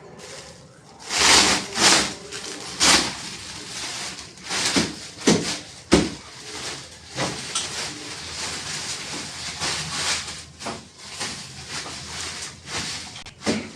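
Packaging being handled on a new fridge: plastic wrapping rustling and crinkling in irregular bursts, with a sharp knock about six seconds in.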